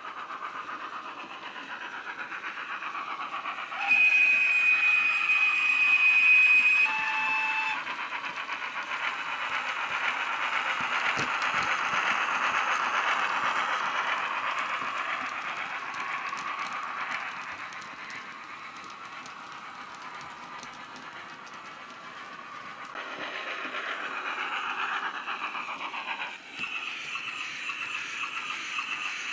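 Steam sounds from a Wheeltappers sound file on an ESU LokSound decoder in a Rapido 15XX pannier tank model, played through its built-in speaker. There is a steady whistle blast about four seconds in, lasting about three seconds, then a short second blast. After that comes the rushing and clicking of the model train of open wagons running past over the track.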